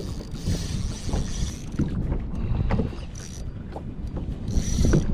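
Water sloshing against a kayak hull with wind buffeting the microphone, and a few short knocks and splashes.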